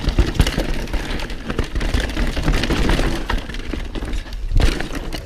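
Mountain bike descending a rough dirt trail: tyres rolling over dirt and rocks and the bike rattling and clattering, with many short knocks over a continuous rushing rumble.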